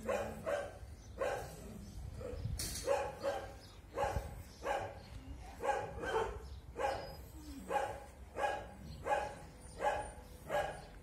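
Dog barking over and over in a steady series of short barks, roughly one and a half a second.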